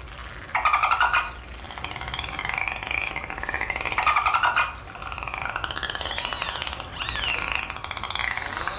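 Dolphins calling: rising and falling whistles overlapping one another, broken by two harsh buzzing pulsed bursts, one about half a second in and one about four seconds in.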